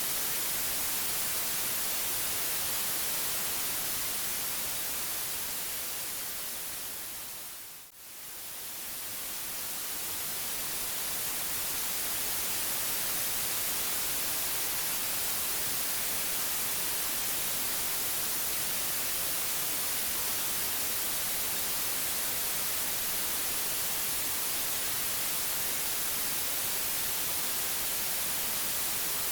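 Steady white noise, an even hiss strongest in the highs. About eight seconds in it fades down almost to silence and swells back up over a few seconds.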